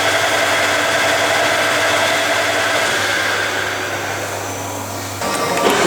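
Harrison M300 centre lathe running under power: a steady mechanical whir with several steady whining tones from the spindle drive, changing about five seconds in.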